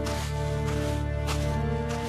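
Background film music: sustained held chords, with a few short soft hits over them.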